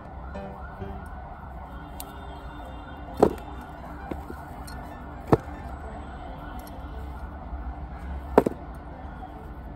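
Soft wavering background music over a low hum, broken by three sharp knocks a couple of seconds apart as elephant foot yam tubers are dropped onto a metal plate.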